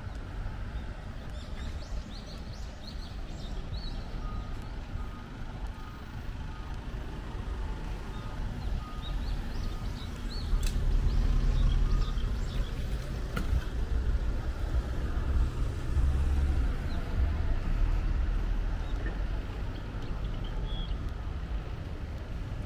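Street ambience with a low rumble of passing traffic that swells around the middle. Small birds chirp, and a faint short beep repeats about every two-thirds of a second for several seconds.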